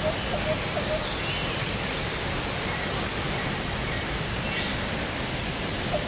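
Steady roar of Arvalem Falls, an even rush of falling water. A bird calls a quick run of short notes, about four a second, in the first second, with a few fainter high chirps later.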